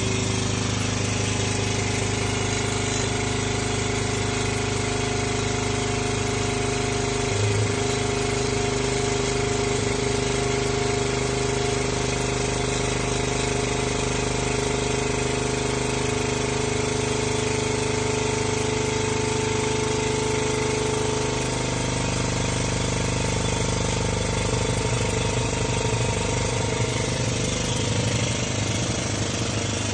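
Air-over-hydraulic pump running steadily with a rapid pneumatic chatter, driving the hydraulic ram of a Tubela Model 3 tube bender through a bend in 42.4 mm steel tube. Its note changes about two-thirds of the way through.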